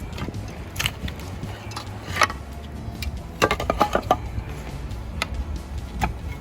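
Clay roof tiles clinking and knocking against one another as they are handled: scattered sharp strikes, with a quick cluster of several about three and a half seconds in.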